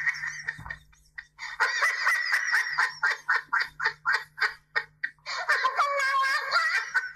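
High-pitched laughter in quick, even bursts, about three a second, running into one long unbroken stretch of laughter near the end.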